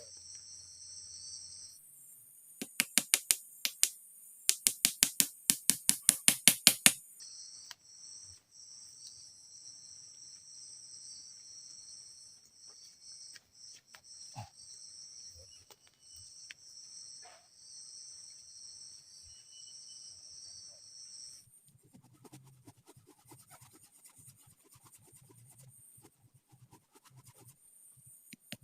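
Forest insects chirring steadily at a high pitch. About two seconds in, two bursts of loud, rapid, evenly spaced clicking break in and stop by about seven seconds. Near the end the chirring drops away, leaving faint scattered low knocks and rustles.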